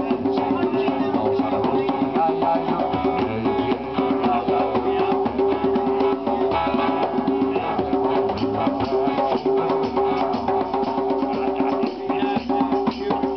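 Djembe drummed in a fast, dense rhythm, under a man singing a country song with acoustic guitar accompaniment.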